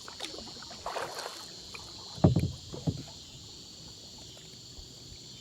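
Two dull knocks against a kayak hull, about half a second apart, over a steady high chorus of insects.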